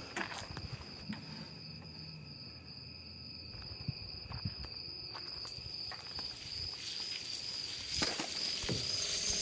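Night insects, crickets, droning in one steady high-pitched tone, with a few faint clicks scattered through it and a hiss that swells over the last second or so.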